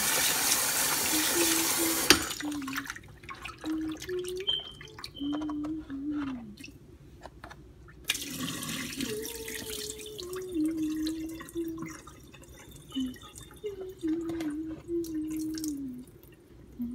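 Tap water running into a plastic container of raw chicken pieces being rinsed by hand; the tap cuts off about two seconds in. This is followed by clicks and splashes of the chicken and container being handled, and a short pour of rinse water tipped out of the container about eight seconds in. A woman's voice hums a tune softly throughout.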